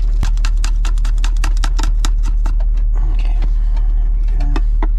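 Rain tapping irregularly on a car's roof, heard from inside the cabin, over a steady low rumble.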